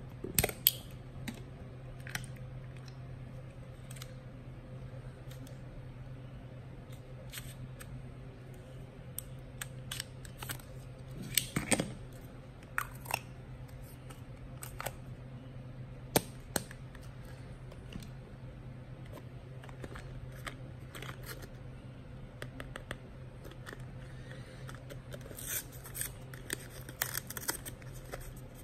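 Hands handling a film camera, a plastic 35mm film canister and a cardboard film box: scattered clicks and taps, with a quick flurry of crackling near the end as the box is opened, over a steady low hum.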